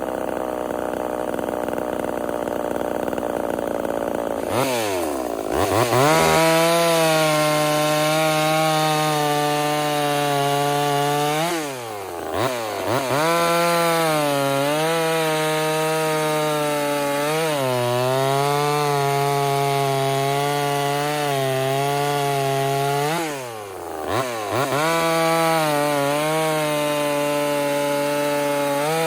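Ported Homelite VI-130 two-stroke chainsaw running at high revs, cutting through wood. The revs drop briefly and climb back three times: near 5 seconds, near 12 seconds and near 24 seconds.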